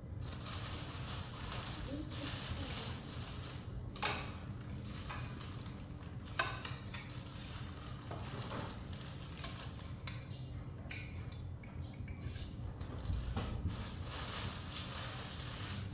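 Plastic bags and food wrapping rustling as a takeaway meal is unwrapped onto a plate, with a few sharp clinks of plates and spoons, over a steady low hum.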